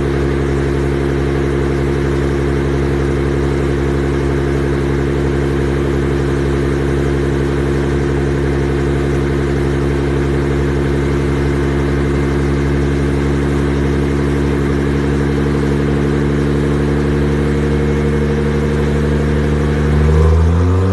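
Nissan GT-R R35's twin-turbo V6 through a 102 mm straight-pipe exhaust, running with a steady, even drone at one constant engine speed. In the last second the pitch climbs and it gets louder as the engine starts to rev up.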